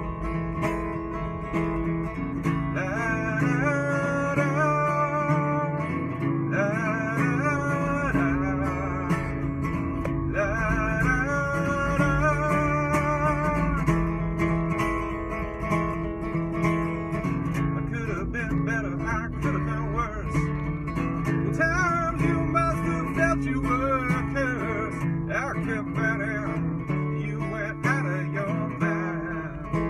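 Acoustic guitar playing a blues song, an instrumental stretch. The melody notes waver in pitch over a steady low bass line, and the guitar is heard inside a car.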